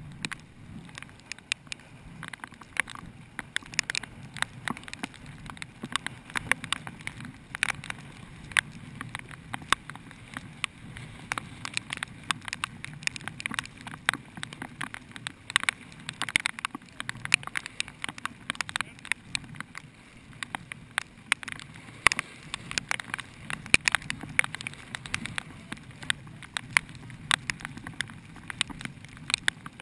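Raindrops tapping irregularly on a GoPro's waterproof housing and the boat hull it is mounted on, many sharp ticks a second over a faint low rumble.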